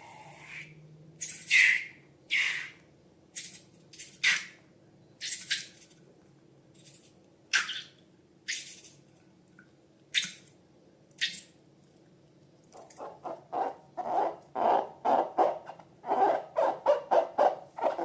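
Slime being squished and handled: short, separate squelching bursts about once a second, then from about two-thirds of the way in a quicker run of squelches several times a second.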